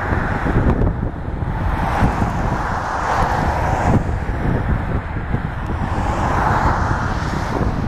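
Wind buffeting the microphone with a gusty low rumble, over a distant rushing noise that swells and fades twice, about three and six seconds in.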